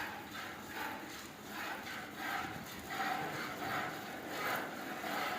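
Milk squirting into a pail as a Gir cow is milked by hand, in an even rhythm of about two squirts a second.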